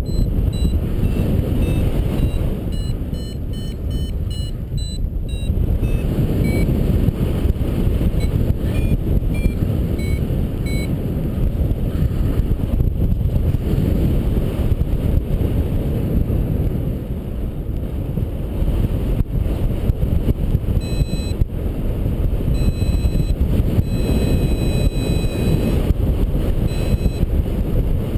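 Steady wind rush over the microphone from the airflow of paraglider flight, the loudest sound throughout. Over it a paragliding variometer beeps in runs of short electronic tones whose pitch shifts, near the start, around ten seconds in and again near the end; these beeps signal the glider climbing in lift.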